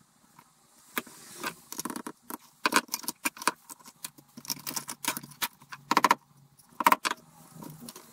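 Tools and small hard pieces clicking and clattering on a wooden workbench as they are picked up and set down: a quick, irregular run of sharp knocks, with two brief ringing clinks about six and seven seconds in.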